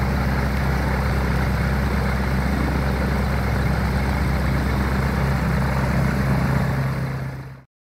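Bushbaby light aircraft's propeller engine idling steadily on the ground, cutting off abruptly near the end.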